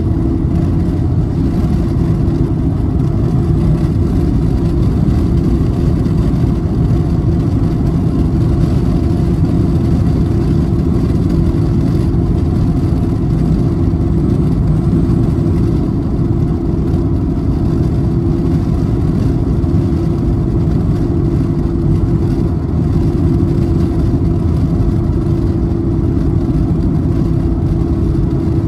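Steady low drone of tyre and engine noise inside a car cruising at highway speed.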